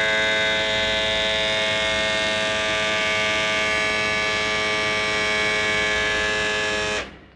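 Electric foil shaver (a non-original copy of the Wahl Vanish) running, a steady motor buzz that is switched off suddenly near the end. Its owner finds the motor not that powerful.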